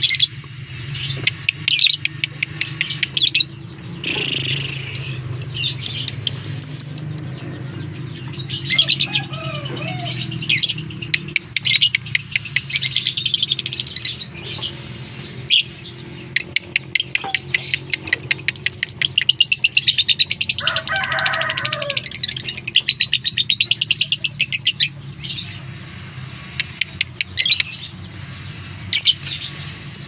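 Lovebird chattering: rapid strings of sharp, high chirps, several running on for a few seconds as fast continuous trills, over a steady low hum.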